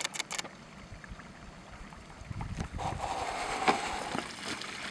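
Shallow stream running over stones, growing louder from about halfway through. A few sharp clicks at the start and one near the end, with a low rumble around the middle.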